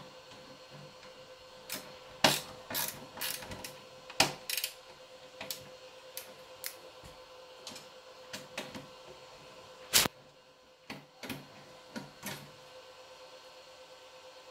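Irregular clicks and knocks of metal parts being handled and fitted during reassembly of an Innosilicon A4+ miner, the loudest about two, four and ten seconds in.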